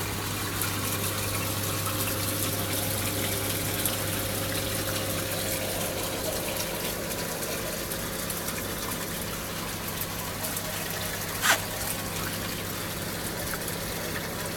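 Reef aquarium's water circulation: a steady rush of moving water over a low, constant electric hum from the pumps, with a single sharp click about eleven seconds in.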